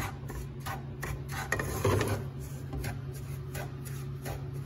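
Wooden spatula scraping and stirring milk powder around a nonstick frying pan, about two strokes a second, over a steady low hum. The powder is being dry-toasted until it turns golden.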